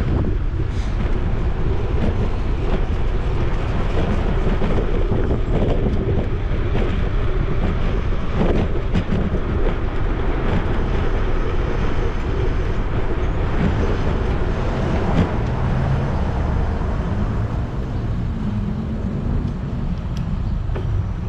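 Steady wind and road noise on a GoPro's microphone while cycling, with occasional light rattles and cars driving nearby.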